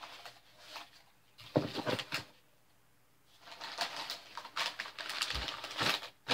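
Packing paper crinkling and rustling in bursts as items are unwrapped and handled in a box, with a few sharp knocks about one and a half to two seconds in and a dull thump a little after five seconds.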